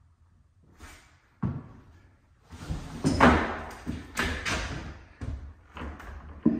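Footsteps and shoe scuffs on a bare, debris-strewn subfloor: a single knock, then a run of thuds and scrapes, loudest about three seconds in, ending with a sharp knock.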